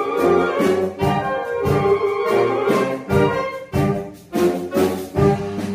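Large saxophone ensemble of alto and tenor saxophones playing together in rhythmic chords, with short accented notes over a low bass line. The playing breaks off briefly about four seconds in, then comes back in together.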